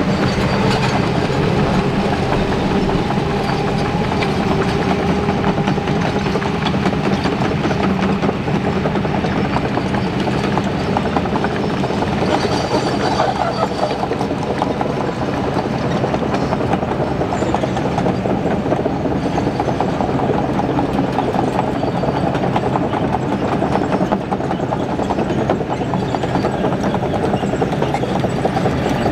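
Heavy diesel excavator engines running steadily, a constant low hum with a dense metallic clatter over it.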